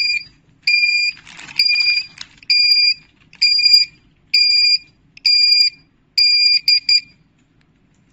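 Portable gas detector's alarm beeping, a high-pitched electronic tone about once a second, set off by methane in the bag above its alarm threshold. The beeping stops about seven seconds in, after two quick short chirps.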